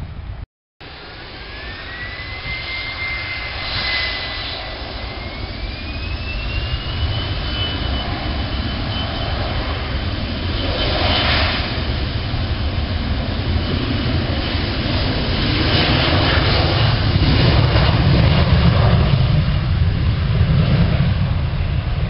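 Boeing 737-400 jet engines spooling up for takeoff: a whine climbs in pitch over the first several seconds and then holds steady while a low rumble grows louder, peaking in the later part.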